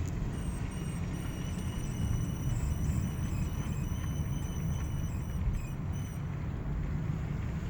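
A car's left front wheel squeaking while it turns left: a thin high-pitched squeal, held from just after the start until about six seconds in, over the low rumble of the car moving.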